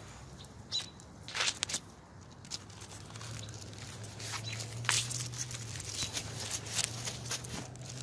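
Evergreen branches and needles rustling and crackling in irregular bursts as a person climbs through the tree holding the phone, with handling knocks on the phone; a faint low steady hum comes in about two and a half seconds in.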